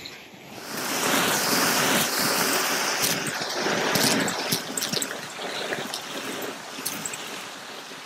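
Vacuum cleaner sucking a mess of seed shells, beads, sequins and coins out of a shag rug: a rushing suction noise full of crackling and rattling as debris is pulled into the nozzle, swelling about a second in.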